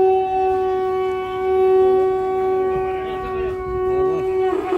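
Conch shell (shankha) blown in one long, steady, loud note, as sounded during Hindu cremation rites; the note breaks off briefly near the end and is taken up again.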